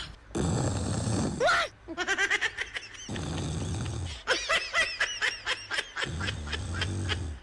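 Laughter in two quick runs of short repeated bursts, alternating with stretches of steady, muffled noise.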